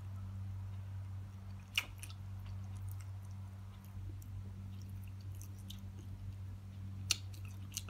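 A person chewing a mouthful of rice and fried fish eaten by hand, with soft wet mouth clicks and two sharper clicks, one about two seconds in and one near the end. A steady low hum runs underneath.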